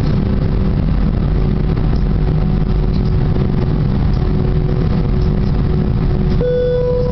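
Airbus A320 cabin noise at a window seat over the wing: a steady engine rumble as the airliner taxis. Near the end a loud buzzing tone with a clear pitch starts suddenly.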